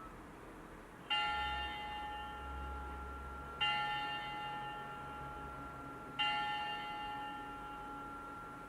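A recorded bell played through a children's sound book's small speaker, struck three times about two and a half seconds apart, each stroke ringing on and overlapping the next.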